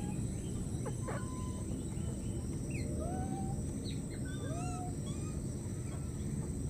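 Scattered short animal calls, squeaks and chirps, some arching or rising in pitch, over a steady low background rumble and a thin, constant high tone.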